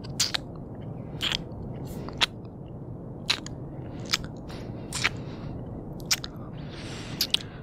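Close-up ASMR kissing sounds: wet lip smacks and kisses made right at the microphone, about one a second, with a breathy exhale near the end.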